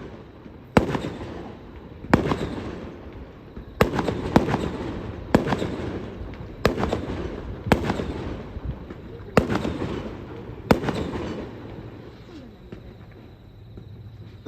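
Aerial firework shells bursting in a display, about nine sharp booms in ten seconds, each dying away in a long echo, then a few seconds with no bursts near the end.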